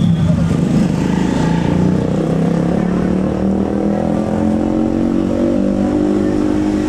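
Tour bus's diesel engine running under load as it pulls away, its pitch climbing slowly over the last few seconds.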